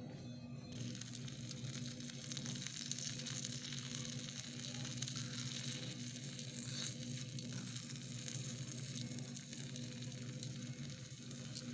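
Noodles in tomato sauce sizzling in a miniature metal wok over a small open flame, a steady hiss that comes on suddenly about a second in. A tiny spoon stirs and clicks lightly against the pan, over a low steady hum.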